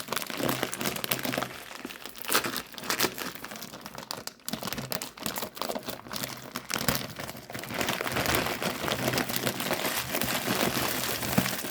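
Plastic packaging of a large bag of wrapped mini chocolate bars crinkling as it is opened and handled, in irregular crackles that grow denser and more continuous about seven seconds in.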